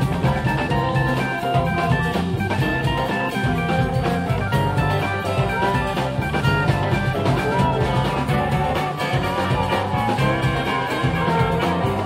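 A blues band playing live, with electric guitar, bass and drums and no singing.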